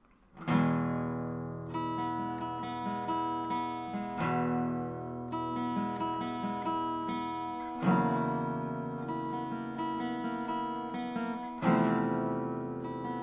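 Background music on acoustic guitar: plucked notes, with a chord struck firmly about every four seconds. It starts about half a second in, after a brief silence.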